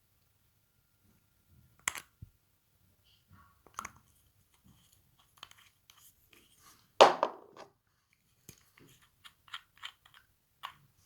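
Slime being worked by hand: scattered short sticky clicks and crackles, with one louder crackling burst about seven seconds in.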